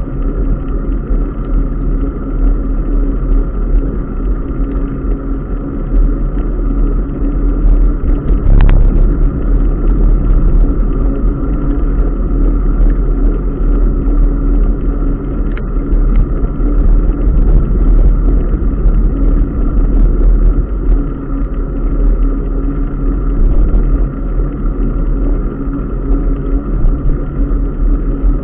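Steady rush of wind and tyre noise from a bicycle being ridden along a wet paved path, heard through a camera mounted on the bike, with a brief click about eight and a half seconds in.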